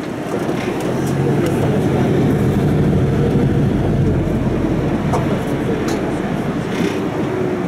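City bus driving in traffic, heard inside the cabin: a steady engine and road rumble that swells a little about a second in and eases slightly after the middle.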